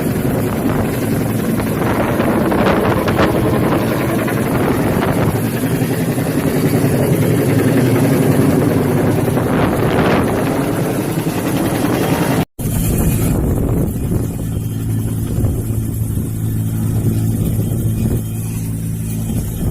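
Bell 212 helicopter's twin-turbine engine and rotor running steadily, with wind buffeting the microphone. The sound drops out for an instant about two-thirds of the way through, then carries on duller and lower.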